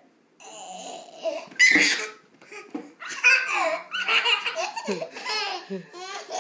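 A baby laughing in repeated bursts, with short breaks between them.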